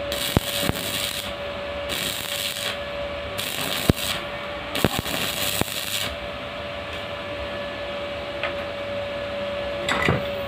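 Stick (arc) welding: the electrode crackles and hisses in stretches, with sharp pops, for roughly the first six seconds, laying a reinforcing weld on a homemade power hammer part; a steady hum runs beneath. Near the end come a few sharp hammer taps on the weld.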